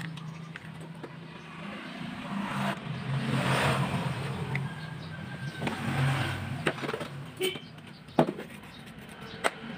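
Traffic from passing motor vehicles that swells and fades, over a steady low hum, with a few sharp clicks in the second half.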